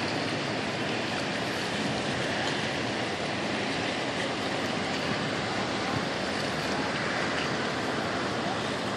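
Steady rush of wind and sea water, an even hiss with no distinct events.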